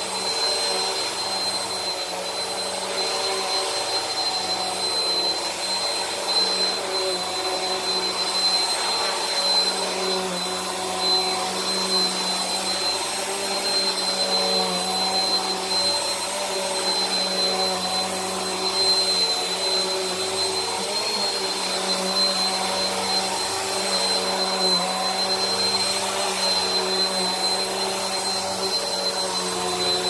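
Bissell PowerForce Helix upright vacuum cleaner running steadily while pushed back and forth over carpet, a high steady whine over its motor hum.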